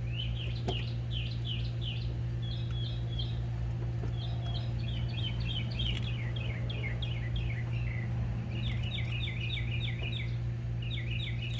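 Small birds chirping in quick, repeated short notes over a steady low hum, with a few faint clicks.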